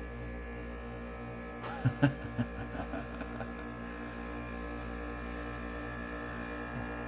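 Air conditioner buzzing with a steady electrical hum and a slow pulse in it, just after being plugged in while switched off. A few sharp clicks sound about two seconds in. The owner takes the buzz for an electrical fault, likely in the control board.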